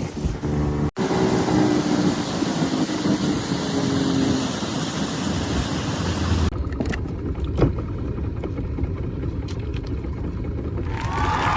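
Motorboat under way: engine running with a steady rush of wind and water. The sound breaks off abruptly about a second in and changes again at about six and a half seconds, with the high hiss dropping away and the low engine sound going on.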